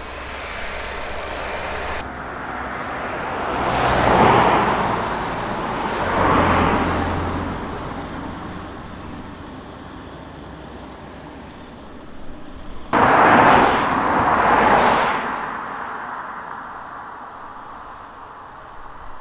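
Cars passing on a road, several swells of engine and tyre noise that rise and fade, over a steady low rumble.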